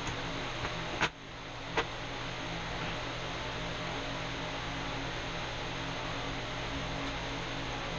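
A steady mechanical hum and hiss, with two short sharp clicks about one and two seconds in.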